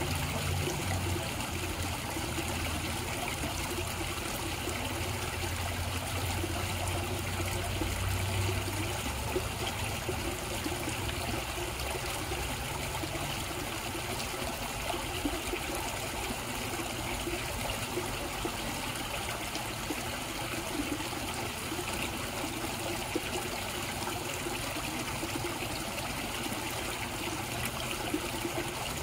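Koi pond water running steadily. A low rumble underneath fades away about ten seconds in.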